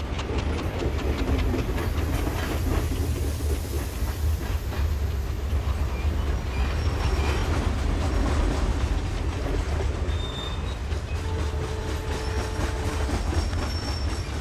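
Diesel-hauled passenger train running along the track: a steady low rumble from the locomotive and coaches, with the clatter of wheels over the rails.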